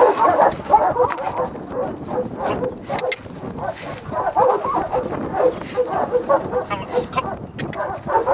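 A dog whining and yipping in quick repeated cries, with crunching clicks of footsteps on gravel.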